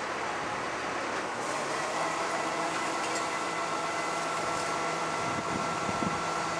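Rear-loader garbage truck running at the kerb. About two seconds in, a steady hydraulic whine starts as the rear bin lifter works, with a few light knocks.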